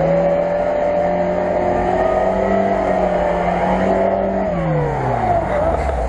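Lada Niva engine revving hard under load as the car claws up a steep slope: the revs rise at the start, hold high for about four seconds, then drop back near the end.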